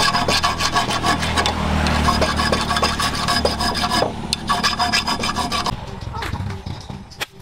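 Abrasive being rubbed back and forth along a green bamboo axe handle in repeated strokes, stopping near the end and leaving a few light clicks.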